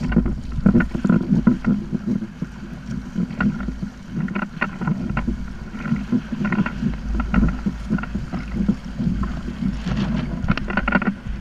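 Wind buffeting the microphone on a kayak out on choppy water, with irregular splashes and knocks of water against the hull.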